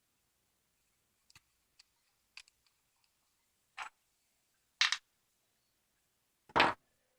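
Sharp clicks and clacks of a metal padlock and small tools being handled during disassembly. A few faint ticks come first, then louder clacks about four and five seconds in, and the loudest, heaviest clack near the end.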